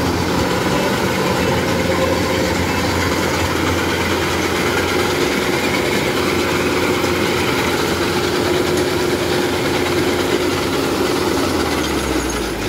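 Kubota DC-105 crawler combine harvester running close by, its diesel engine and machinery making a loud, steady drone.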